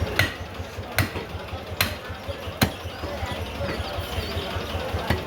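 Butcher's cleaver chopping beef: five sharp strikes, the first four less than a second apart, then one more after a pause, over a steady background hum.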